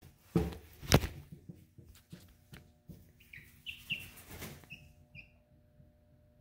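Two loud thumps about half a second and a second in, then scattered light knocks. Later a hen gives several short, high chirping calls, the last two about half a second apart.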